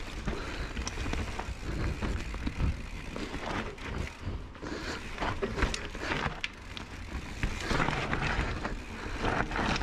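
Mountain bike rolling fast down a rocky dirt trail: tyres crunching over loose stones and dirt, with irregular knocks and rattles from the bike jolting over bumps.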